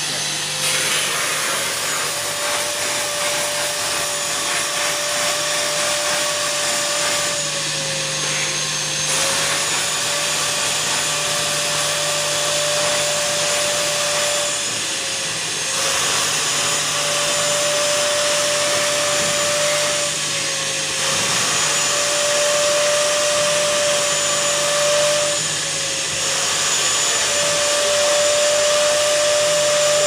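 Wet-vacuum motor of a steam cleaner-extractor running steadily with a high whine, and air hissing through the carpet nozzle as the wand is worked over the mat. Every five or six seconds the hiss drops out briefly and the whine dips in pitch, then both come back.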